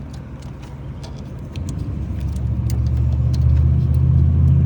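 A low engine-like rumble builds up over a couple of seconds and drops off near the end, with faint scattered clicks on top.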